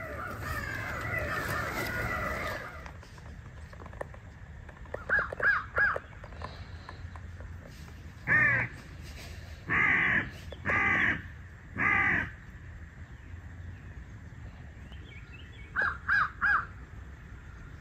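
Crow caws: a burst of many overlapping caws at the start, then three quick caws about five seconds in. Four longer, louder caws follow between about eight and twelve seconds, and three more quick caws come near the end.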